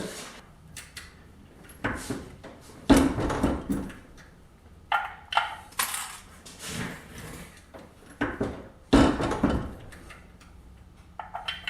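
Reloading gear and brass cases being handled on a bench: a series of short knocks, clinks and rattles.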